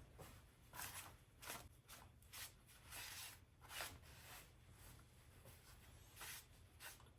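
Faint, scattered rustles and light clicks of hands handling parts, with long quiet stretches between them.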